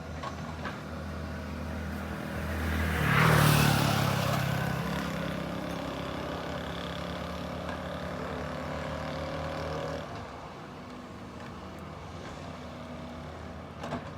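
Diesel engine of a Doosan DX225LC excavator running steadily, then rising in a loud rushing surge about three seconds in that fades over the next couple of seconds. The engine note drops back at about ten seconds.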